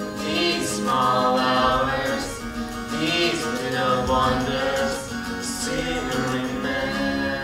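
Acoustic guitar accompanying a man and a woman singing a duet, played and sung live.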